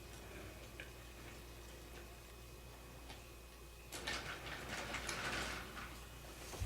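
Toy train cars rattling and clicking along the track as they are pushed down it: a few faint clicks, then about four seconds in a clattering stretch lasting about two seconds.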